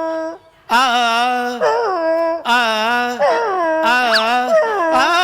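A man imitating a dog with his voice: a run of drawn-out, wavering howls and whines, one after another, with a sharp rising yelp about four seconds in.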